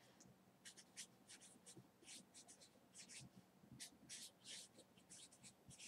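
A pen writing: faint, short scratching strokes, several a second.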